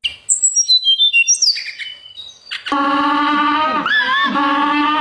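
Birds chirping and whistling in short, high notes, then about two and a half seconds in a loud, drawn-out animal call that takes over, pitched and steady with a few bends.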